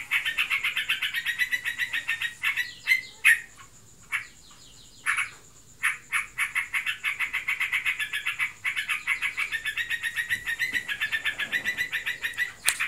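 A trucukan (yellow-vented bulbul) giving a fast run of short repeated chattering notes, the continuous 'ngebren' calling, breaking off a few seconds in for a couple of isolated calls and then starting up again. The keeper is unsure whether the bird is in breeding condition or simply in full song.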